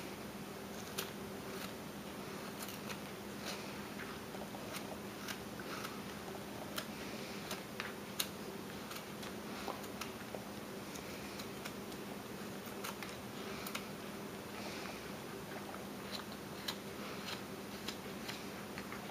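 Carving knife shaving small cuts off a wooden block to round it off: faint, irregular slicing and scraping with small clicks, over a steady low hum.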